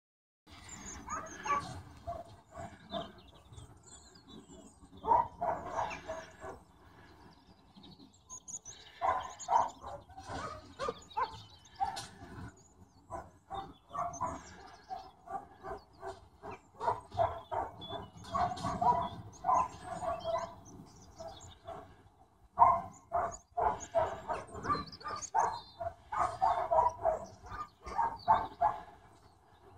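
Sheepdog puppies yapping and barking in repeated flurries of short calls, with brief lulls between them.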